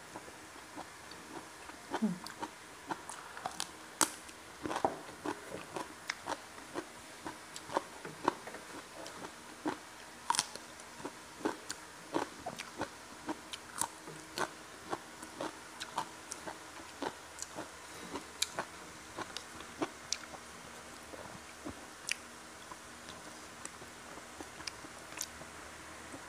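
A person chewing and biting fried catfish with rice and raw vegetables, close to a clip-on microphone: irregular crisp crunches and small mouth clicks, a few every second.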